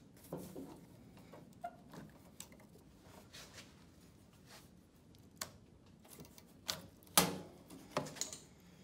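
Hydraulic hoses and a quick coupler being handled on a tractor loader circuit: scattered, irregular metallic clicks and knocks as the coupler is worked loose and the hoses are moved. The loudest knock comes about seven seconds in.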